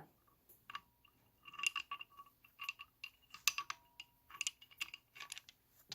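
Metal crimping dies clinking and clicking against the head of a hydraulic crimper as they are fitted into its slot: a scatter of light, irregular metallic clicks with a short ring.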